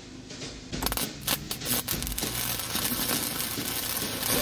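Wire-feed welder's arc crackling steadily as it runs a bead along steel angle iron, starting about a second in.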